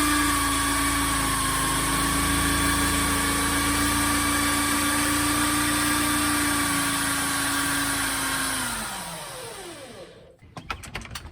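Power drill with a long bit boring diagonally through a house wall, its motor running at a steady whine. About nine seconds in the motor spins down, its pitch falling away, followed by a few light clicks.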